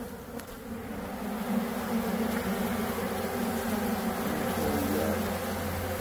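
Honey bees from an opened hive buzzing together in a steady hum, which swells a little over the first second or two and then holds even.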